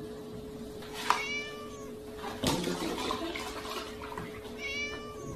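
A kitten meows twice, high-pitched, over a steady low hum. Between the meows comes a sharp knock as a milk carton tips over, followed by the splashing of milk pouring into a plastic tub.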